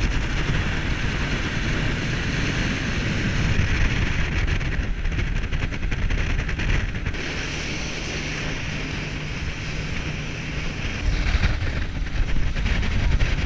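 Tour boat's motor running steadily under way, with wind rushing over the microphone and water noise; it gets a little louder near the end.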